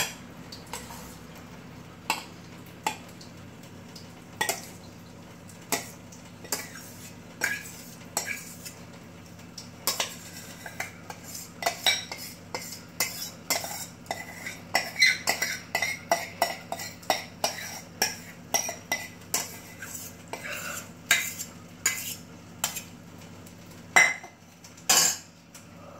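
Steel spoon scraping and knocking against a steel pot while scooping out thick set curd (dahi), in sharp clinks. The clinks come about once a second at first and much faster from about ten seconds in, over a steady low hum.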